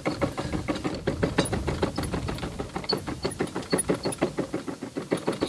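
Kitchen knife finely chopping garlic on a cutting board: rapid, even strokes, about five or six a second.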